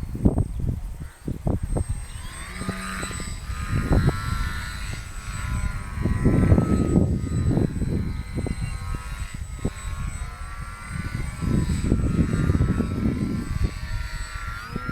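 Radio-controlled model plane's motor and propeller whining overhead, the pitch rising and falling with the throttle, rising sharply near the end. Strong wind buffets the microphone with low rumbling gusts that are the loudest part.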